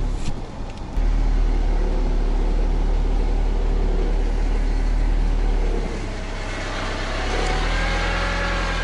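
Car engine running in low gear, heard from inside the cabin, as the car pushes through soft mud on a field track. There is a brief dip just after the start, and the engine note climbs over the last few seconds.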